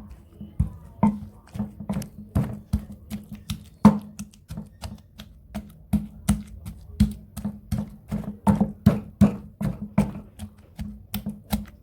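Pestle pounding African black soap and herbal powders in a mortar, a steady run of strikes about three a second, each with a short low ring, working the ingredients into a paste.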